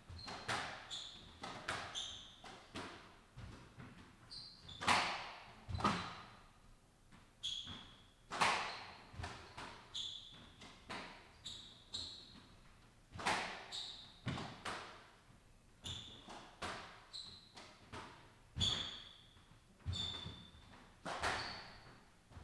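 Squash rally: the ball cracks off the rackets and smacks the court walls about once a second, some hits much harder than others, with short high squeaks of court shoes on the wooden floor between the strokes.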